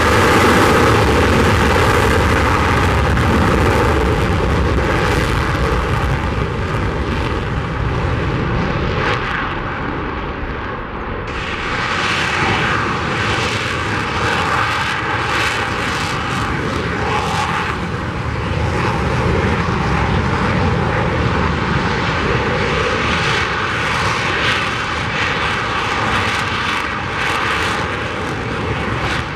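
Military jet engine noise from aircraft on a runway. First an F-35 Lightning II's single turbofan rolling along the runway, then, after about eleven seconds, a T-38 Talon's twin turbojets during its roll down the runway with a fluttering roar.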